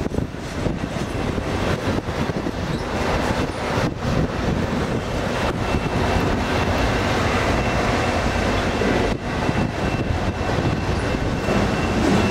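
Double-stack container train rolling past: a steady rumble and rattle of the well cars' wheels on the rails. A faint high whine joins about halfway through and holds.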